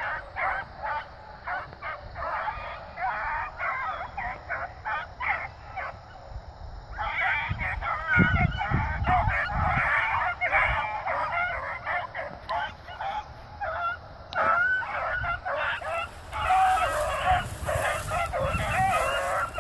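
A pack of young beagles baying in a steady chorus of overlapping calls as they work a scent line through the grass. The chorus grows louder and fuller about a third of the way in.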